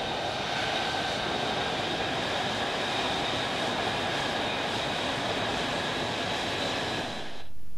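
F-35B's jet engine running on the ground: a steady rushing turbine whine with several high, even tones. It cuts off shortly before the end.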